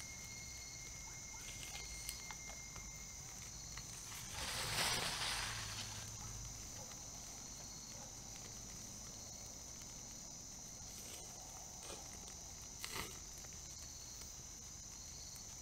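Steady high-pitched trilling of night insects, with a brief rattling hiss about four and a half seconds in as seasoning is shaken from a shaker onto steaks on a small wood-burning firebox stove, and a few faint clicks.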